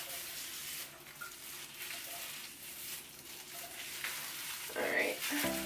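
Plastic-gloved hands squeezing and working wet hair dye through hair: a faint, crackly, wet rustling close to the microphone. Music with steady tones comes in right at the end.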